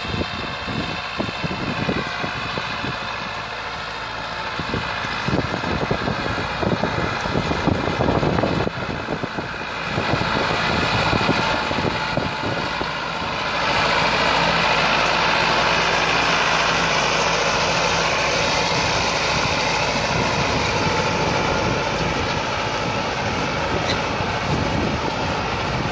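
Massey Ferguson 385 tractor's four-cylinder diesel engine running steadily under load while it pulls a disc harrow through the soil. The sound gets louder and fuller about halfway through as the tractor comes close.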